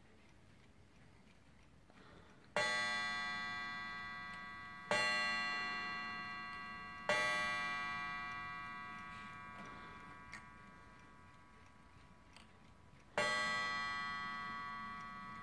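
Warmink Dutch bracket clock striking on its coil gong: three strikes about two seconds apart, then a single strike near the end, each ringing on and fading slowly. The strikes are set off as the minute hand is turned round by hand, with faint clicks between them.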